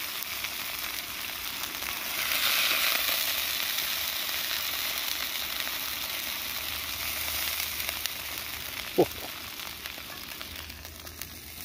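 Peppered steaks sizzling in an extremely hot frying pan as they are lifted out with a spatula. The sizzle is strongest about two seconds in and dies down near the end, with one sharp click about nine seconds in.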